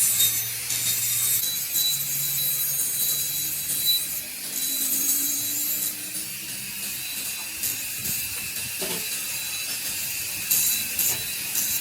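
Metalworking noise: a steady, hissy rasp of metal being cut or worked, over a faint motor hum, with a few short sharp knocks near the end.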